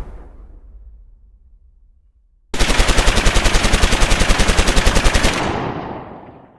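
Outro sound effect: the tail of a boom dies away, then about two and a half seconds in a rapid burst of machine-gun fire starts, about a dozen shots a second, and fades out near the end.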